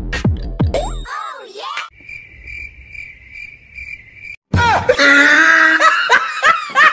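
Bouncy music breaks off about a second in. A steady, high cricket chirping follows for a couple of seconds, then stops suddenly. A loud, strained yelling voice cuts in and runs to the end.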